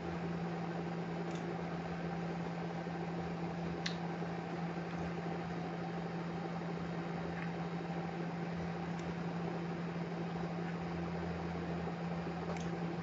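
Steady hum and hiss of an electric fan running, with one constant low tone, and a faint click about four seconds in.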